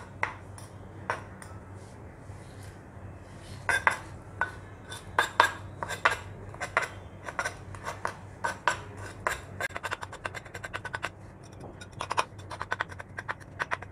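Steel kitchen knife blade tapping and scraping against a wooden cutting board while it presses breadcrumbs onto the sides of a skewered chicken piece: irregular sharp clicks, coming in quick flurries through the second half.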